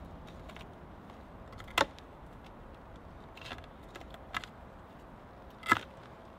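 Sharp wooden knocks from the poles of a bushcraft shelter being pulled apart: two loud ones about four seconds apart, with a couple of fainter ones between.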